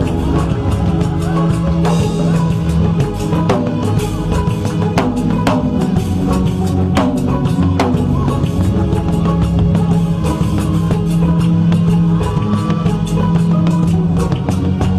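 Loud music with a drum kit beating steadily, bass and guitar.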